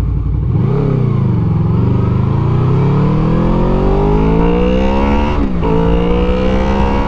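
Honda VFR800's V4 engine under hard acceleration, heard from the bike. The revs blip and fall back just after the start, then climb steadily for about four seconds, drop sharply at an upshift about five and a half seconds in, and climb again.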